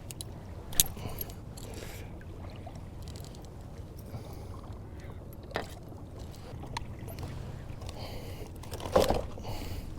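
Steady low wind and water noise around a kayak, broken by a few sharp knocks and clicks: one just under a second in, one about halfway, and one near the end.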